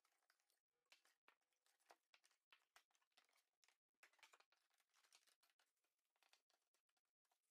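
Near silence, with scattered very faint clicks and rustles of cardboard packaging and parts being handled during unboxing.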